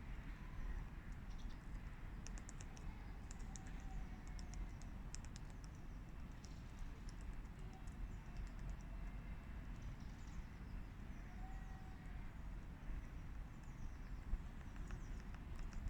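Lesser spotted woodpecker pecking, light quick taps in short runs, most of them in the first few seconds. A steady low outdoor rumble runs underneath.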